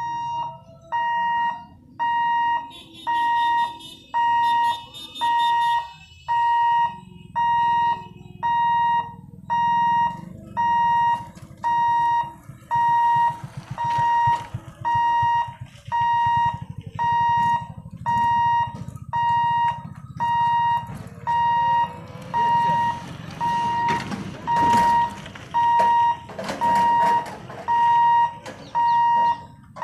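Level-crossing warning hooter beeping about once a second, one steady tone, as the lifting barriers are lowered across the road. A low rumble runs under the beeps from about seven seconds in, swelling briefly near the end.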